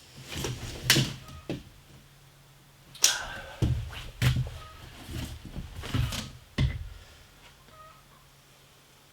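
Knocks and thuds of things being handled and set down, such as cupboard doors and kitchen items, about six louder ones in the middle stretch, over a faint low steady hum.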